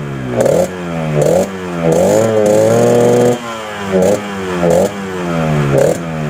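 Yamaha RX-King's 135 cc single-cylinder two-stroke engine revved in short throttle blips, with one longer held rev about two seconds in. The pitch drops back after each blip. The exhaust has a crisp, growling note.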